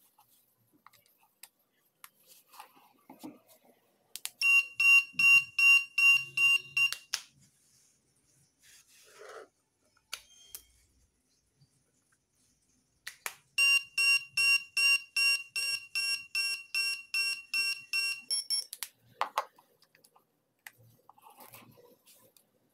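An electronic buzzer beeping in quick even pulses, about three a second: a run of about eight beeps, then a pause, then a longer run of about fifteen beeps.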